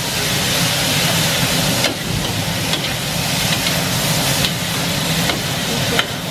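Chicken and onion sizzling in a steel wok as a metal spatula stirs and scrapes them, with a steady hiss and several sharp clinks of the spatula on the wok.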